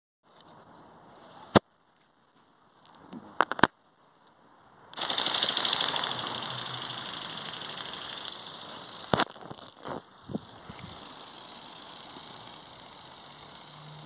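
Electric flapping-wing toy bird (Gogo bird): a few sharp clicks, then about five seconds in its wings start a loud, rapid buzzing flutter. The flutter fades over the next few seconds to a faint steady hiss.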